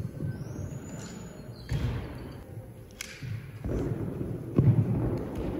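Several dull thuds and knocks over a low rumble, the heaviest about four and a half seconds in.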